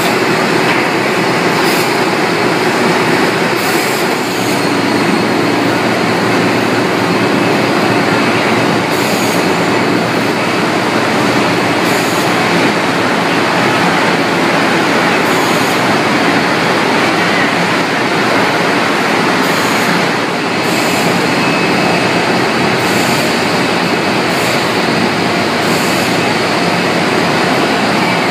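Steady clatter and rumble of a poultry-processing line, with the overhead shackle conveyor running, and occasional sharp metallic clanks every second or few.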